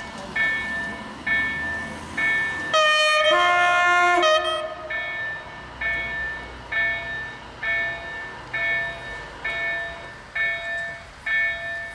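Level crossing warning bell ringing about once a second. About three seconds in, the approaching MR/MRD diesel multiple unit sounds its horn once, two tones together for about a second and a half.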